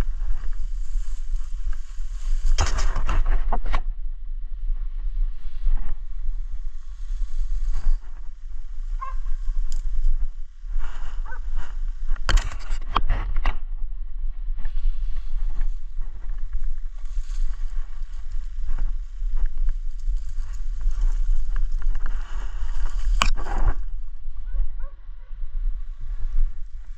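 Steady low rumble of wind on the microphone, with rustling and scraping handling noise and three louder bursts of it.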